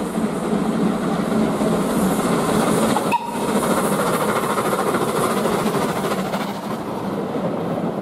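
Small steam tank locomotive and its coaches passing close by. The train noise grows as it approaches, then eases slowly as the coaches roll past, with a momentary break in the sound about three seconds in.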